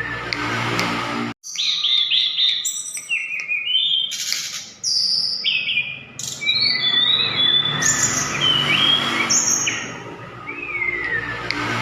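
Sulingan (tledekan gunung) songbird singing a fast, varied run of high whistled notes, many sliding down in pitch, in the full fighting-style song that hobbyists prize. The song cuts out completely for a moment about a second in.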